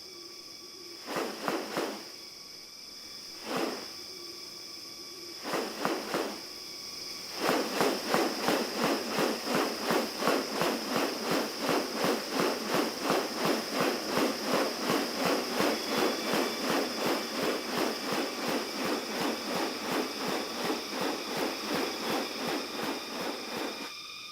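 Rainforest insects shrilling in steady high tones. Over them come a few short separate bursts of sound, then, from about seven seconds in, a long run of regular pulses at about two or three a second.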